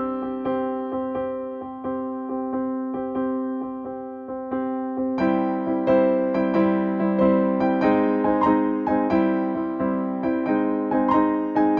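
Background keyboard music: a piano-like melody of struck, decaying notes, growing fuller about five seconds in.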